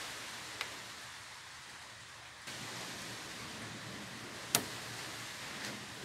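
A few sharp metallic clicks from a restored Lockwood padlock being handled with its key in the lock, the loudest about four and a half seconds in, over a steady hiss.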